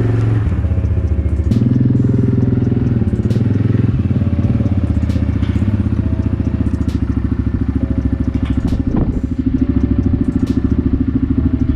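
ATV engine running steadily at low speed, with a few light clicks and knocks over it.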